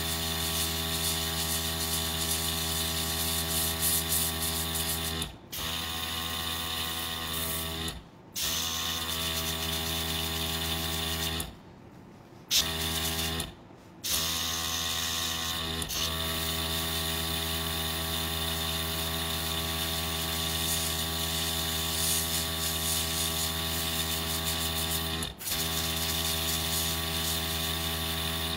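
Small airbrush compressor running with a steady hum, and the hiss of the airbrush spraying paint to shade the edge of a nail tip through a stencil. The sound drops out briefly a few times.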